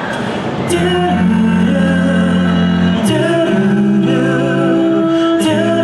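Male a cappella group singing held chords in close harmony, changing chord every couple of seconds, with a sharp percussive hit at each change.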